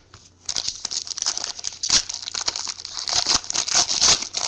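Trading cards being handled by hand: a dense crinkling, rustling sound that starts about half a second in.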